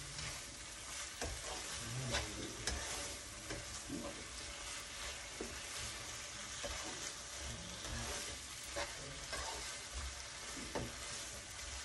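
Green bell peppers and onions sizzling steadily in a frying pan as a spatula stirs and tosses them, with irregular light scrapes and taps of the spatula against the pan.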